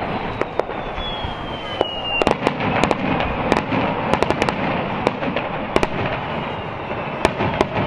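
Aerial fireworks shells bursting in the sky: a string of sharp bangs and crackles, with a faint falling whistle in the first two seconds.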